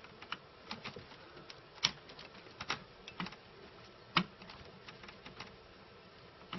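Irregular small clicks and taps of a screwdriver on screws and metal parts as a bracket is unscrewed from the back of a Teac X-300R tape deck, with the two sharpest clicks about two and four seconds in.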